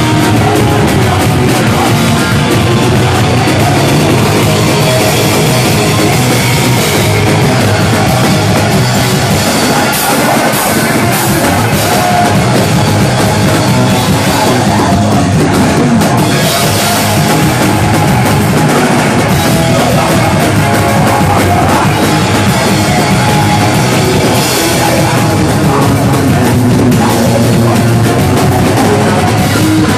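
Punk rock band playing live and loud: distorted electric guitar, bass guitar and drums, with a singer shouting into the microphone.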